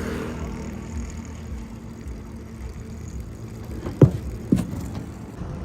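A steady low engine hum. About four seconds in come two sharp knocks, half a second apart.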